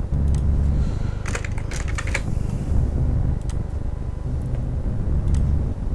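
Computer keyboard keys clicking in a quick run a second or two in, then a few single clicks, over a steady low rumble.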